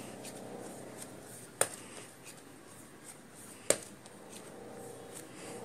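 Dough being kneaded by hand on a wooden cutting board: faint rubbing and pressing, with two sharp clicks, one about a second and a half in and another about two seconds later.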